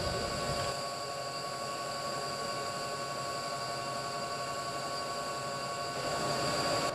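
Steady mechanical hum with several high, constant whining tones over a faint hiss. A low rumble fades out about a second in.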